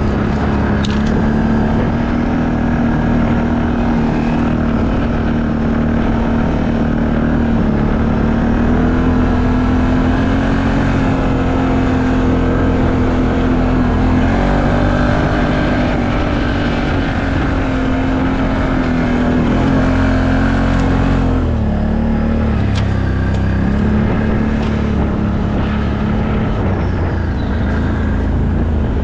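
ATV engine running steadily under throttle, its pitch stepping up slightly a few times and dropping about two-thirds of the way through.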